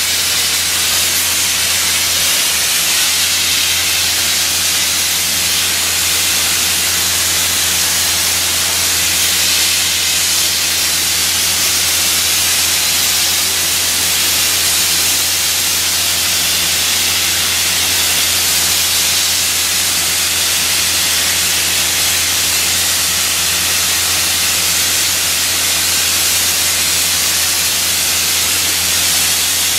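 Dry ice blasting nozzle spraying high-pressure air and dry ice pellets at a painted ceiling to strip the paint, a loud steady hiss. Under it runs a steady low hum.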